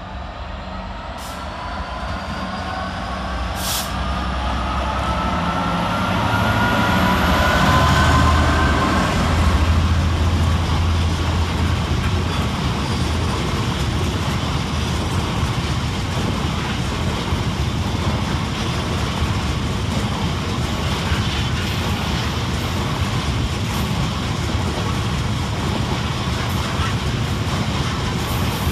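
Class 66 diesel-electric freight locomotive, with its two-stroke V12 diesel engine, approaching and passing close by. Its whine rises in pitch and the noise is loudest about eight seconds in. After it, a long rake of open box wagons rolls past with a steady rumble of wheels on the rails.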